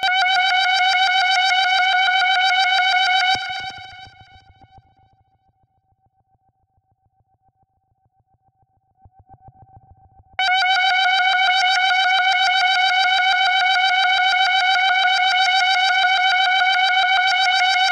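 NK 1001 software monophonic synthesizer holding one steady note, a bright tone with many overtones. About three seconds in it fades away to near silence, and about ten seconds in it comes back suddenly at full level.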